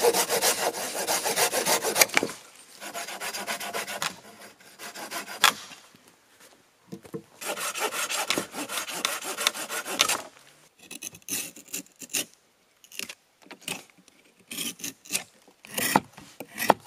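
Small hand saw cutting through a freshly cut branch in quick strokes for about two seconds. Then a knife scraping and shaving the bark off the wooden rungs in runs of strokes with short pauses between them.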